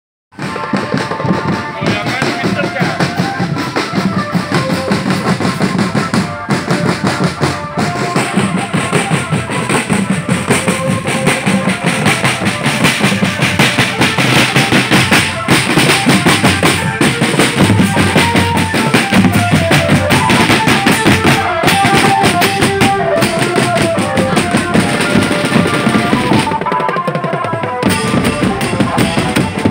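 School drum band playing: snare and bass drums keep a dense, steady beat under a stepping melody line.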